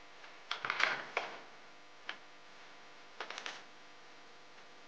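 Hard plastic Nerf blaster shell parts clicking and knocking together as they are handled and set down. There is a cluster of clicks about half a second to a second in, a single click around two seconds, and a quick run of clicks a little past three seconds.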